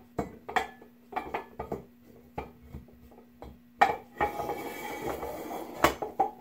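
Aluminium rotors of a 6-71 Roots blower being set into the aluminium blower case: a run of light metal clinks and knocks, a loud clank about four seconds in, then scraping as a rotor slides down into the case, ending in another clank.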